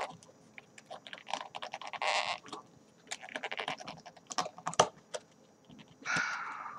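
Snap-on lid of a clear plastic deli cup being worked and pried off by hand: a run of irregular plastic clicks and crackles.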